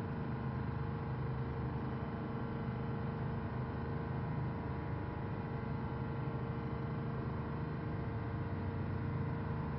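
Steady engine drone, unchanging in pitch, over a rushing of wind and sea.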